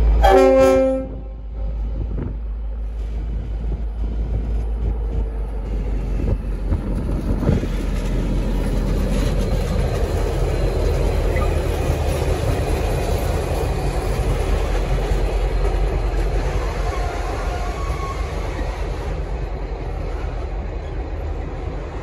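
The Leslie RS5T five-chime air horn on a V/Line N class diesel locomotive, cutting off about a second in. Then the locomotive's diesel engine running and its wheels rolling over the rails as it passes close by without a train, loudest in the middle and fading toward the end.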